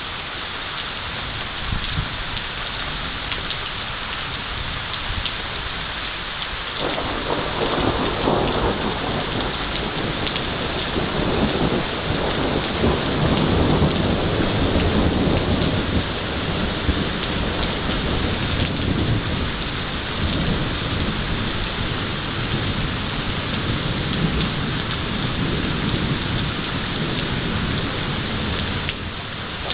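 Heavy rain falling steadily, with a long roll of thunder that breaks in about seven seconds in, is loudest around the middle and rumbles on more weakly almost to the end.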